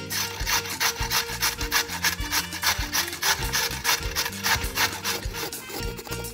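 A carrot grated on a metal box grater: even rasping strokes, about four a second.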